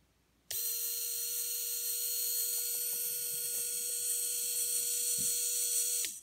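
Small geared electric motor in a red Lego-compatible housing running, turning its gear with a steady whine. It starts abruptly about half a second in and stops just before the end, its pitch dropping briefly as it winds down.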